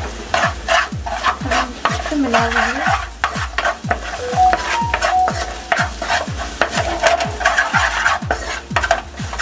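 Wooden spatula stirring and scraping sliced onions and spices sizzling in a hot non-stick frying pan, a scrape every fraction of a second. Background music with a steady low beat plays along.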